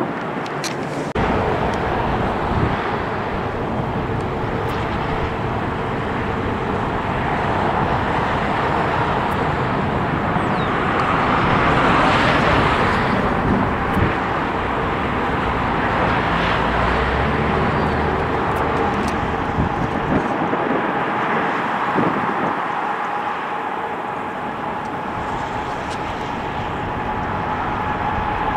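Jet airliner engine noise swelling to a peak about twelve seconds in and then easing off, with a steady engine whine in the later part. Wind buffets the microphone.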